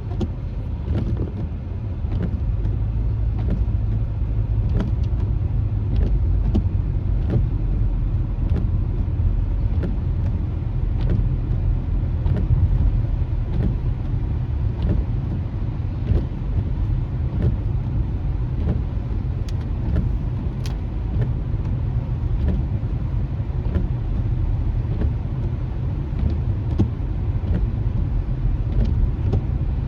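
Car driving, heard from inside the cabin: a steady low road and engine rumble with faint scattered ticks throughout.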